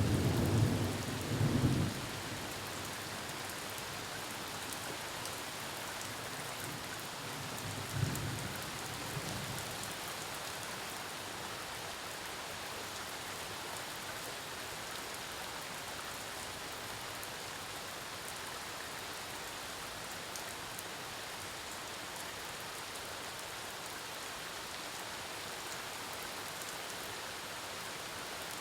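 Steady rain falling, with a low rumble of thunder in the first couple of seconds and a shorter, fainter one about eight seconds in.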